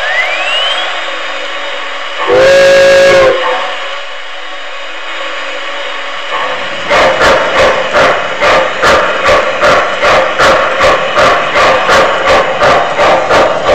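Sound effects from a sound-equipped model steam locomotive's speaker. A rising tone at the start, then one loud whistle blast of about a second, then a steady steam hiss. About six seconds in, even chuffing begins, roughly two and a half beats a second, as the locomotive gets under way.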